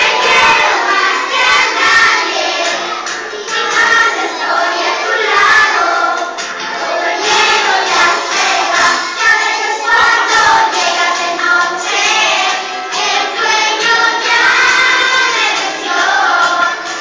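A group of young children singing a song together in Spanish.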